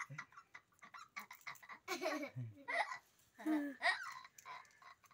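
Young children giggling and laughing in short bursts, with a toddler babbling.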